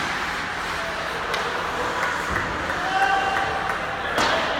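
Ice hockey play in an indoor rink: a steady wash of skate and play noise with faint distant shouts, a couple of small clicks, and one sharp crack about four seconds in.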